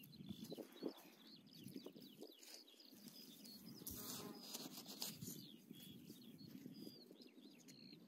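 Faint scraping and crunching of sand and shingle as gloved hands dig around young sea kale shoots, with a few small clicks. Short, faint high bird chirps come and go over it.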